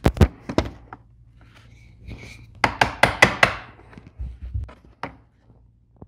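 Sharp clicks and taps of small metal hand tools on the plastic door-handle mechanism as a C-clip is worked onto its pin: a few clicks near the start and a quick run of them about three seconds in.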